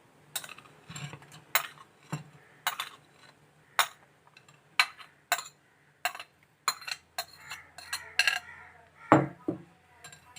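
A spoon clinking and scraping against a sieve and bowl as soaked tamarind is pressed through to extract its pulp: irregular sharp clicks and knocks, with one heavier knock near the end.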